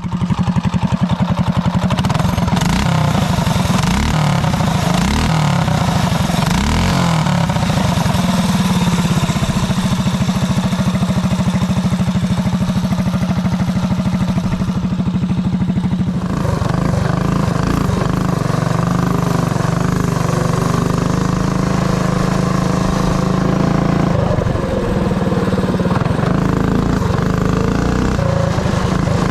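Mini bike's Predator 212 single-cylinder engine running hard as the bike is ridden, loud and steady, with its note changing about halfway through.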